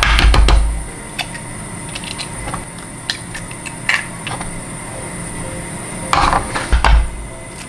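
Eggs being cracked one at a time into a stainless steel bowl: scattered sharp taps of shell and clinks of kitchenware, with heavier thumps at the start and again about six seconds in.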